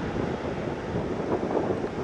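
Wind buffeting the microphone over the distant rumble of a jet airliner climbing away after takeoff.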